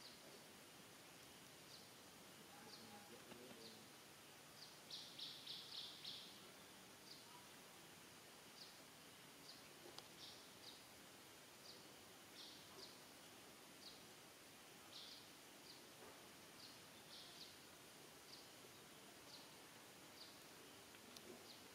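Near-silent forest ambience with faint, short, high chirps repeating roughly once a second, including a quick run of about five chirps around five seconds in.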